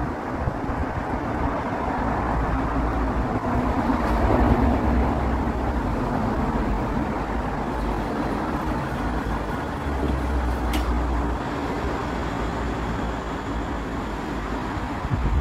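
Cologne Stadtbahn light-rail train approaching and pulling into a station, a steady running rumble over a hum of road traffic, swelling about four seconds in.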